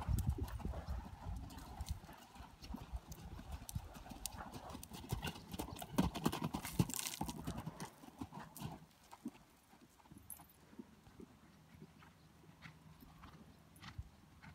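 Hoofbeats of a grey appendix gelding cantering on a sand arena, close and loud at first, then growing fainter from about eight seconds in as the horse moves off across the arena.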